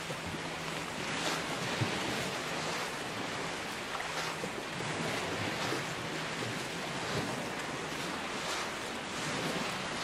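Gulf of Mexico surf washing onto the beach: a steady hiss of waves, with wind buffeting the microphone.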